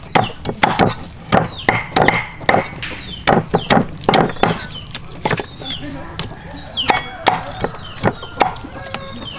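Meat cleavers chopping through raw pork legs on thick round wooden chopping blocks: a run of sharp chops, about three a second for the first half, then fewer and more spaced out.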